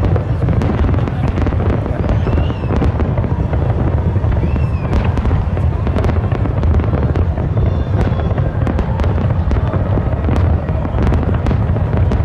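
Fireworks display: aerial shells bursting in a continuous barrage, a steady low rumble of booms with many sharp cracks and crackles throughout.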